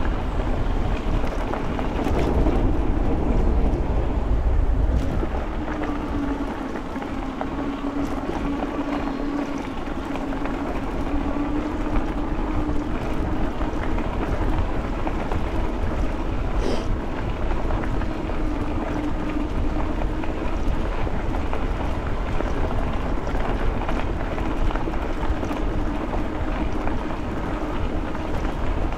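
Jasion EB7 2.0 folding e-bike in motion: wind rushing over the microphone and a steady, wavering hum from the bike's tyres and drivetrain as it rolls along a trail.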